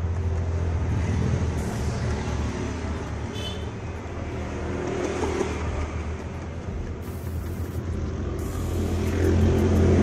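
Motor vehicle engine noise and road traffic, a steady low hum that grows louder near the end as a vehicle comes closer.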